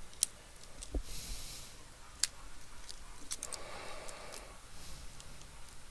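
Scattered small clicks and brief soft rustling of laptop parts and small tools being handled during disassembly, with a sharp click about two seconds in.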